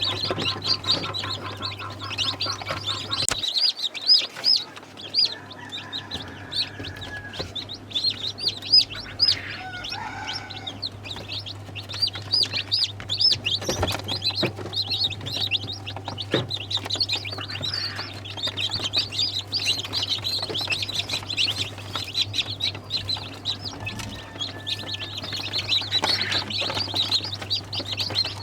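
Chickens with a constant chorus of short, high peeping chirps and occasional clucks, over a steady low hum.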